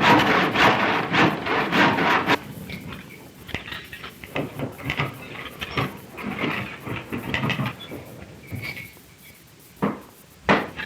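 Hand renovation work on wood: a busy run of rhythmic scraping and knocking, then quieter scattered knocks and scrapes, ending with two sharp knocks close together near the end.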